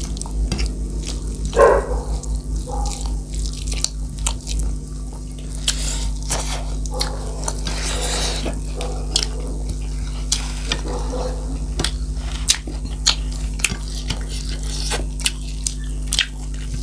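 Close-miked eating: many short wet clicks and smacks of chewing and mouth noises as dried-meat curry is eaten, over a steady low hum.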